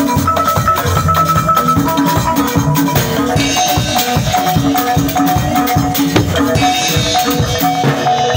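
Music for traditional Malian dancing: dense, driving percussion with a short melodic phrase repeating over it. About three seconds in, the sound gets brighter and busier at the top.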